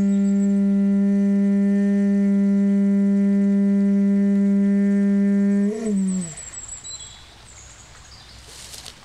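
Conch shell trumpet blown in one long steady low note, rich in overtones, that slides down in pitch and dies away a little after halfway, leaving faint background.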